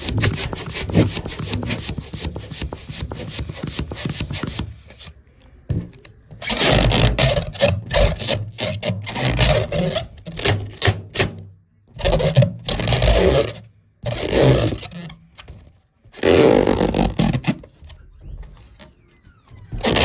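Hands rubbing and scraping a rubber balloon: about five seconds of fast scratchy rubbing, then a series of separate rubbing bursts, each a second or two long, with short pauses between.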